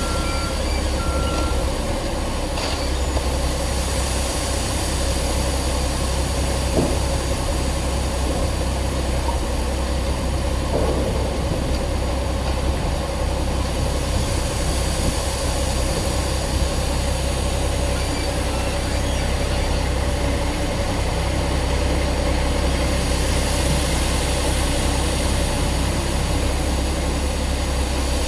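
Heavy construction machinery running steadily: a continuous low engine rumble with a constant whine over it.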